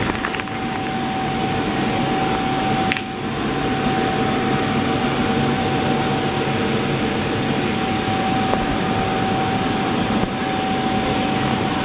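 Electric air blower of an inflatable spray booth running steadily, a constant rush of air with a steady whine over it, keeping the booth inflated.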